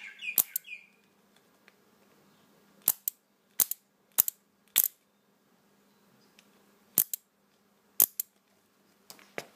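A homemade relay ignition-coil driver giving about eight sharp snaps at irregular intervals over a faint steady electrical hum.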